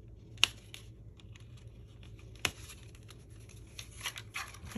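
Hands handling and rustling stiff cardstock, with two sharp clicks about two seconds apart, the first about half a second in. The rustling gets busier near the end.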